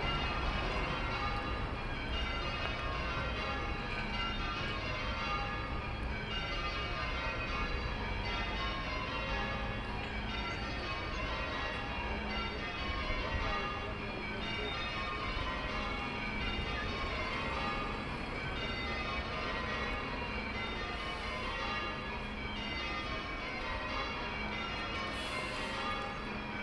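Church tower bells rung full-circle in change ringing: a steady, rapid stream of bell strokes that keeps cycling through the ring in shifting order.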